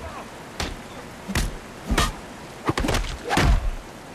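Film fight sound effects: a run of heavy punches landing, about five blows in four seconds, the last the loudest.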